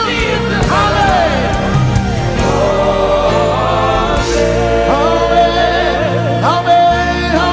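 Gospel worship music: singing with wavering runs and gliding held notes over a band's held chords and steady bass.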